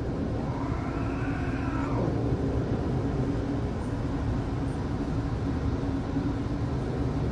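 A domestic cat gives one faint, drawn-out meow from about half a second to two seconds in, over a steady low mechanical rumble with a hum.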